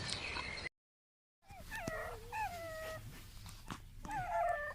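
Canine whimpering: several short, high whines, each rising and then falling, beginning after a brief silent gap that cuts off a moment of bird chirps and noise.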